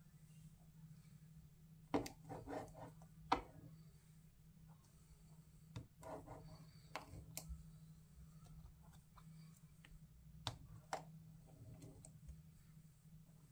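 Faint sticky crackling and sharp clicks from a cutter blade slicing and pulling through thick black glitter slime. The sounds come in short clusters about two, six and ten seconds in, with single louder clicks among them.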